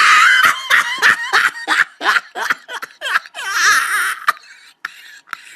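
A person laughing in a run of quick bursts, with a shouted "Oh!" at the start.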